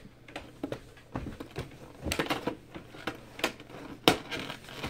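Hands handling trading cards and their packaging: scattered clicks, taps and rustles, with one sharp click about four seconds in.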